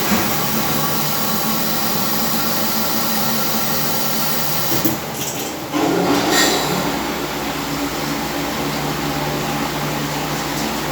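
Barrel washing machine running steadily with a constant motor hum. About five seconds in the sound dips briefly, then comes back louder and rougher for a second or so before settling back to its steady run.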